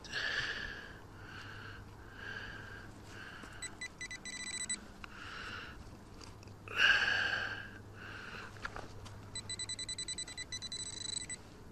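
Metal detecting gear beeping over a target in a dug hole: a run of electronic tones repeating about every 0.7 s, loudest about 7 s in. Two spells of fast, high pulsed beeping come around 4 s and from 9 to 11 s.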